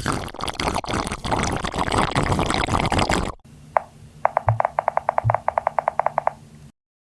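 Two sound effects in turn: a dense crackling noise for about three and a half seconds, then a single click and a fast run of pitched clicks, about twelve a second, that stops abruptly.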